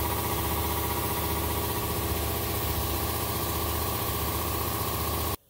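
A shop machine running steadily, a hum with a stack of even tones over a hiss, cutting off abruptly near the end.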